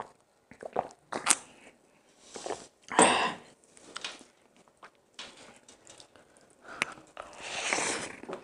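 Close-miked mukbang eating sounds: a sip of cola from a glass, then fingers picking through chicken biryani rice and crispy fried whole chicken and bringing it to the mouth. Short clicks, with a louder noisy swish about three seconds in and a longer one near the end.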